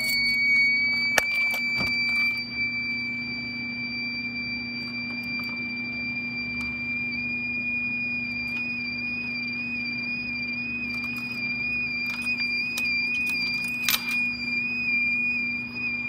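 Fire-Lite MS-9200 fire alarm system sounding in alarm after a pull station was pulled, running on backup batteries: one continuous high-pitched tone, wavering slightly in pitch in the second half. It is really loud, over a steady low hum, with a few sharp clicks.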